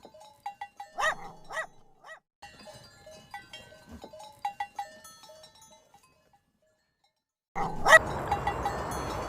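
Dog barking twice about a second in, followed by fainter short calls. Near the end a different, noisy sound starts with a sharp hit.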